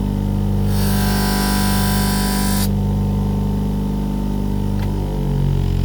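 Buffing machine motor running with a steady hum, and about two seconds of hiss starting just under a second in as the knife is pressed against the sisal buffing mop loaded with cutting compound. The hum's pitch shifts near the end.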